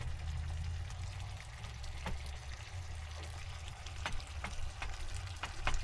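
Food cooking on a portable propane stove: a soft sizzling hiss with scattered crackles and a steady low hum underneath.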